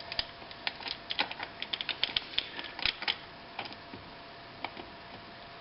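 Irregular metal clicks and taps from parts of a White 77MG sewing machine being handled and fitted. The clicks come in a quick flurry over the first three seconds, then a few scattered ones.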